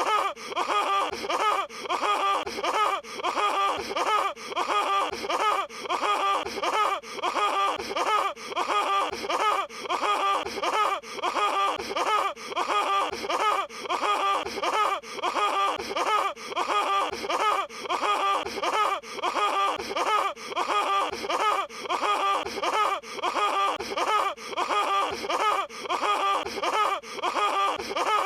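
Patrick Star's cartoon laugh sound effect, a short high, silly 'ha-ha' laugh repeated in a seamless loop, about three laughs every two seconds.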